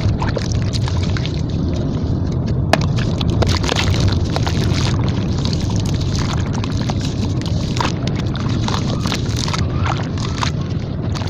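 Hands crushing and crumbling a water-soaked red sand-cement slab in a metal basin of water: wet crunching and squelching with many small crackles and clicks and water sloshing, over a steady low rumble.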